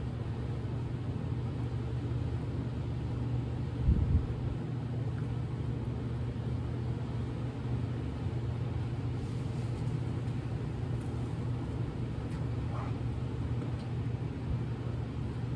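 Steady low hum of an idling engine, with one dull thump about four seconds in.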